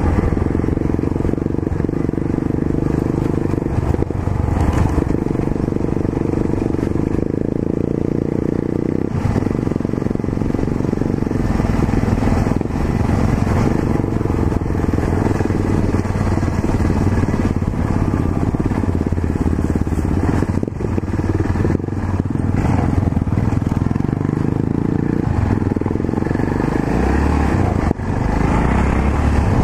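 Yamaha XT 660Z Ténéré's single-cylinder four-stroke engine running steadily while riding on a dirt road, its pitch dropping and rising a few times, with scattered short knocks.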